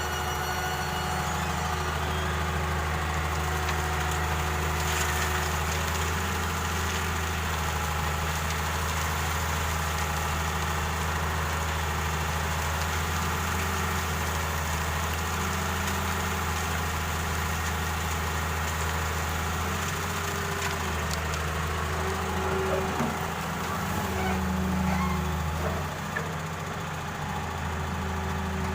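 Diesel engine of an excavator running steadily, with a brief change in pitch and level a few seconds before the end as the machine takes on load.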